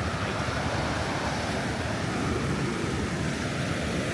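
Gentle ocean surf washing on the beach: a steady, even rushing of breaking waves.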